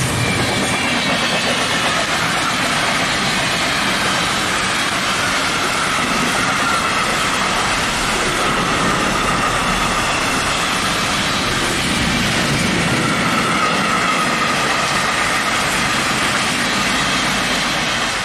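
Container freight train wagons rolling past close by: a steady, loud rush of steel wheels on the rails, with faint high tones wavering over it.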